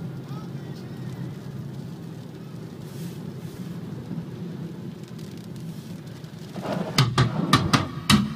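Steady low rumble of a car's engine and tyres on a wet road, heard inside the cabin. About seven seconds in it is overtaken by a louder run of sharp knocks and clatter.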